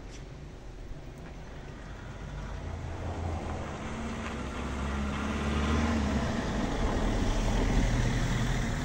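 A motor vehicle approaching, its engine rumble and road noise growing steadily louder.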